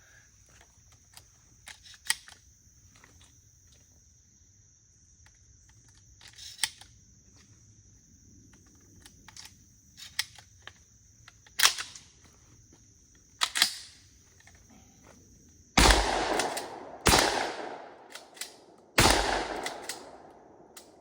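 Akdal Arms 12-gauge shotgun firing buckshot: three loud blasts about a second or two apart, each with a long echoing tail, in the last third. Before them come a few sharp clicks.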